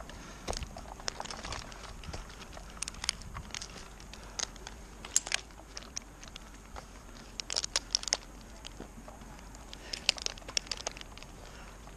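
Irregular sharp clicks, scrapes and rustling from a tree climber's rope and metal climbing hardware (carabiners, pulleys, lanyard) working against a pine trunk, in small clusters with short gaps between.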